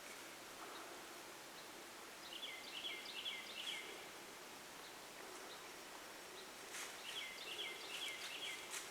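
A small songbird sings two phrases, each a quick run of four or five repeated two-note whistles, a higher note followed by a lower one. Faint steady outdoor hiss lies underneath.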